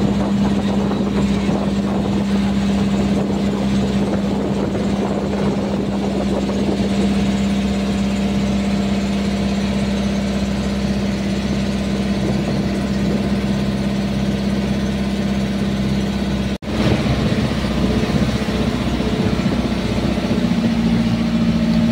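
Engine of a motorized outrigger boat (bangka) under way, running with a steady drone, with water rushing and splashing along the hull and bamboo outriggers.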